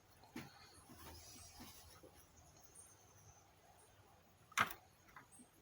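Faint clicks and small taps of tools and hands working on a circuit board, with one sharper, louder click about four and a half seconds in.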